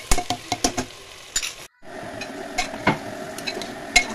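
A spatula stirring chicken pieces and tomatoes in a pressure cooker, knocking and scraping against the pot with frequent sharp clicks over a soft sizzle of frying. The sound drops out for a moment a little under two seconds in.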